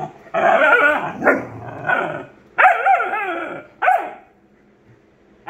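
A German Shepherd and a Great Dane puppy at play, barking and giving long yowls that bend up and down in pitch, in several loud bursts. The noise stops about four seconds in.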